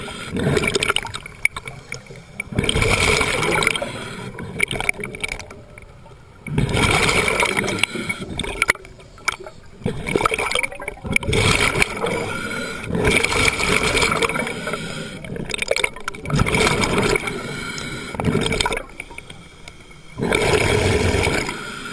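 Scuba regulator heard underwater: exhaled air bubbling out in loud bursts of a second or two, every four seconds or so, with quieter stretches between breaths.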